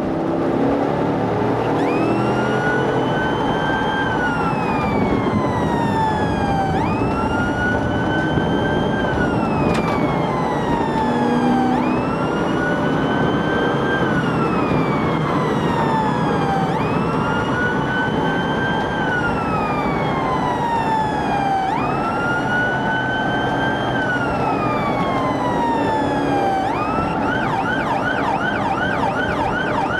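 Police cruiser's electronic siren on a wail, its pitch climbing and falling in slow cycles about every five seconds, switching to a fast yelp near the end. Steady engine and road noise runs underneath.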